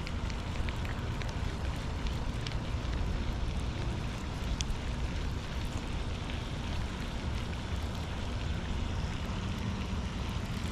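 Wind buffeting the microphone, a steady low rumble with a few faint clicks over it.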